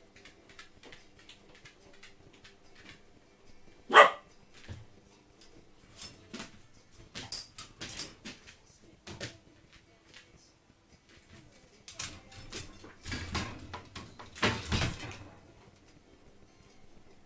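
A dog barking: one loud, sharp bark about four seconds in, and more bursts of barking later, with scattered clicks in between.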